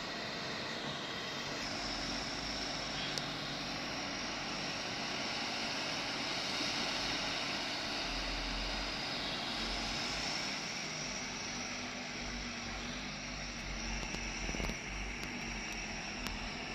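A vehicle engine running steadily under a constant hiss, with no clear changes in pace.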